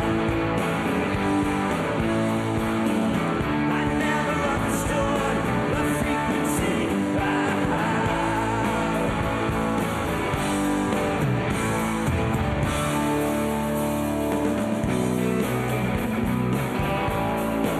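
Rock band playing live: electric guitar and bass guitar, with singing.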